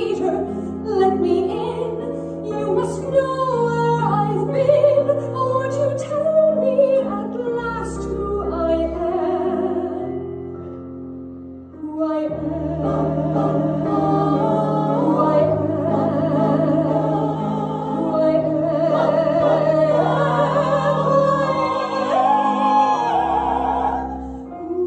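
Music: an operatic voice singing long, wavering lines without words over a piano and sustained low accompaniment. It softens about ten seconds in, then swells again.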